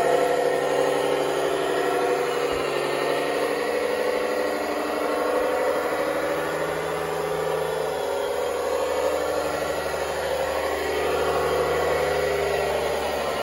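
Radio-controlled model Fendt 1050 tractor driving with a loaded log trailer: a steady engine-like drone that swells and eases several times.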